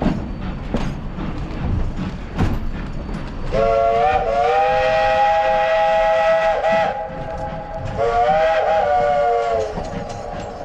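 Steam locomotive whistle blown twice, a long blast then a shorter one, sounding a chord of several notes that slide up as each blast opens and sag as it closes. Before the whistle, the rattle and knocking of the train's cars rolling on the rails.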